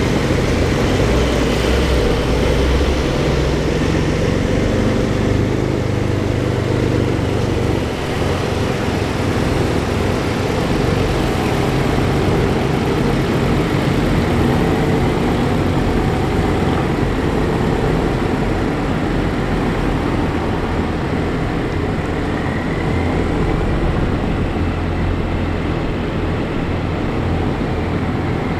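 Sports car engine and exhaust running steadily at low, even revs: a continuous low drone with no sharp revs or bangs.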